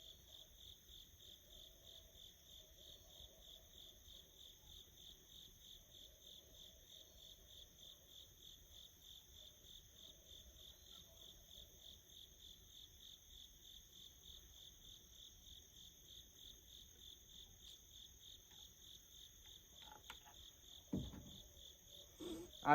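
Crickets chirping in a steady, evenly pulsed high trill, faint. A short knock comes near the end.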